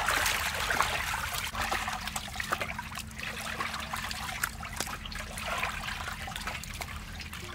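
Water splashing and trickling as pieces of pork are washed by hand in a metal basin of water and lifted out dripping onto a bamboo tray. It is fullest in the first couple of seconds, then thins to drips and light wet taps.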